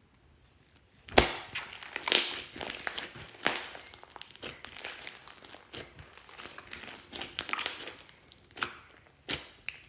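Hands squeezing and kneading a large mass of slime mixed with water beads: wet squishing broken by many sharp crackles and pops. It starts about a second in, with a loud pop at the start and another near the end.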